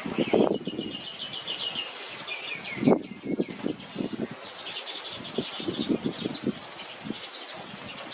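Weaver birds chattering: rapid runs of high, buzzy chirps repeating throughout, over soft low rustles and flutters.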